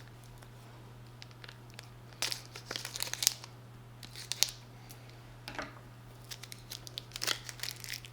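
Plastic crinkling and tearing in short irregular bursts as a bottle's plastic seal or wrapping is torn off to open it.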